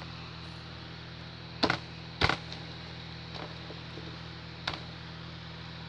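Homemade slime being squeezed and stretched, giving three short sharp pops, the loudest about two seconds in, over a steady low hum.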